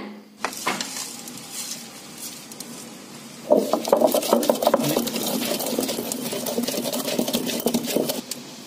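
Hand-turned stone wet grinder (aattukkal): the heavy stone pestle rolls around the stone mortar, grinding the chutney ingredients with a little water into a paste. It makes a gritty rumble with quick irregular clicks, starting about three and a half seconds in.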